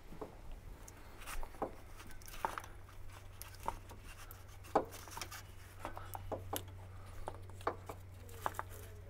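Irregular light clicks, taps and rubs as a gloved hand works a coolant hose and plastic thermostat housing loose, over a faint low steady hum.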